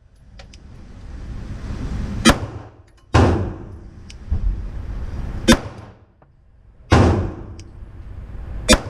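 Five gunshots at irregular intervals on an indoor shooting range, each report followed by a ringing echo off the range walls.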